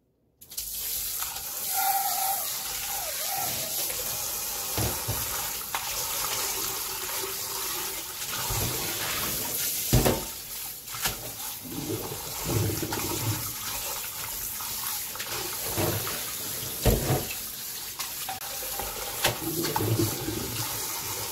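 Kitchen tap running hard into a glass bowl and strainer in a stainless-steel sink while a hand swishes salted seaweed stems in the water to rinse the salt off. The water starts about half a second in, with splashing and a few dull knocks.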